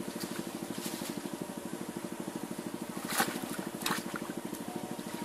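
A small engine running steadily with a fast, even beat, and two brief sharp noises about three and four seconds in.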